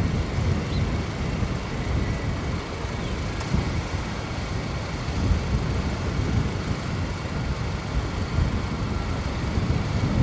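Steady low rumble of a Boeing KC-46's two turbofan jet engines as the tanker climbs away at climb power after a touch-and-go.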